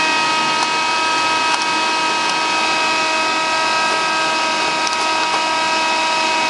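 Electric fan running steadily: an even whir with several constant high whining tones, the strongest a steady whine, and a few faint clicks through it.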